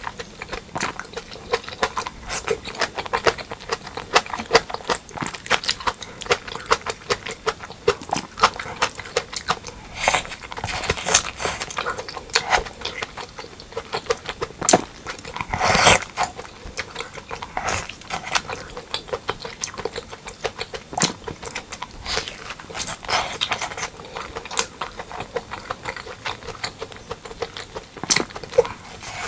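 Close-miked eating sounds: a person chewing pork leg curry and rice, with rapid wet smacks and clicks of the mouth throughout and a louder burst about halfway through.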